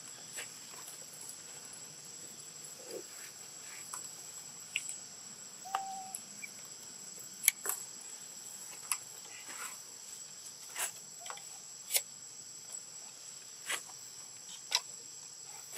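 Steady high-pitched drone of forest insects, with scattered sharp clicks and ticks throughout and one brief short tone about six seconds in.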